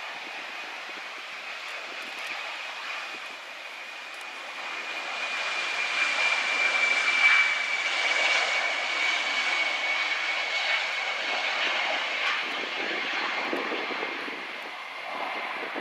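Yakovlev Yak-42D's three rear-mounted turbofan engines running at high power as the jet rolls down the runway on its takeoff run: a rushing jet roar with a high whine that drifts slightly lower in pitch, swelling about a third of the way in and easing off near the end.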